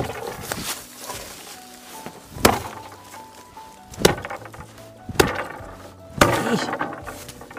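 Axe chopping into the trunk of a dead tree: five sharp, solid blows at uneven intervals of one to two and a half seconds.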